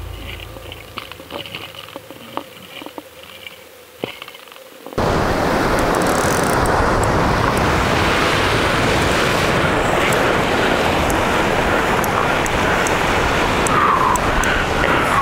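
Surf washing and breaking against granite jetty rocks: a loud, steady rush that starts abruptly about five seconds in, after a quieter stretch.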